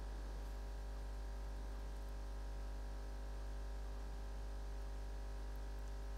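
Steady low hum, unchanging throughout, with no distinct handling sounds standing out.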